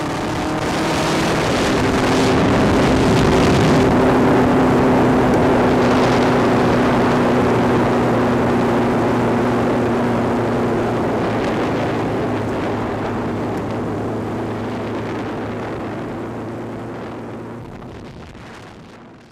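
Motorcycle engine running at a steady cruising speed, with wind rushing over the microphone. The sound swells over the first few seconds and fades out gradually toward the end.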